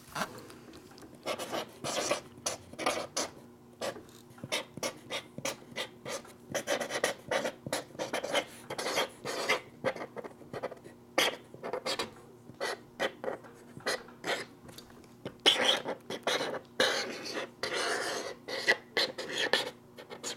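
Permanent marker scratching across a cardboard box in many short, quick strokes while writing and drawing, with a longer, busier run of strokes near the end.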